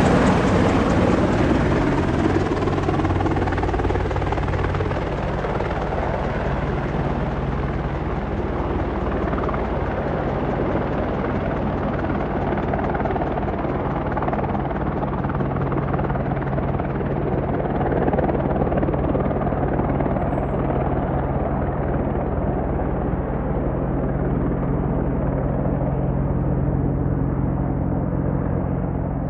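Boeing AH-64 Apache attack helicopter flying past close and then moving away, its steady rotor beat and turbine engine noise continuing throughout. The higher part of the sound fades gradually and the level drops a little over the first few seconds as it pulls away.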